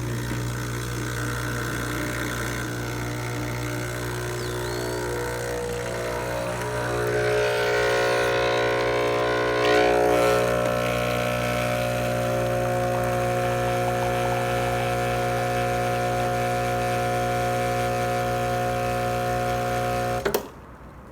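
The new 60 Hz Ulka vibratory pump of a Breville 870 espresso machine buzzing steadily as it pumps water through a shot and builds brew pressure. The hum changes tone and grows louder about seven seconds in, peaks around ten seconds, and cuts off suddenly near the end when the shot is stopped.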